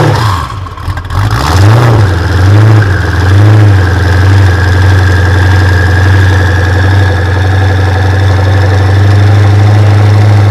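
Supercar engine just after start-up, revved in four quick rising-and-falling blips over the first few seconds, then settling into a steady idle.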